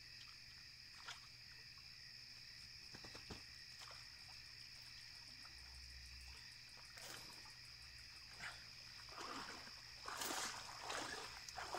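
Night chorus of frogs and insects, a steady high-pitched trilling at two pitches. Near the end come splashing and rustling as a cast net is hauled out of the water.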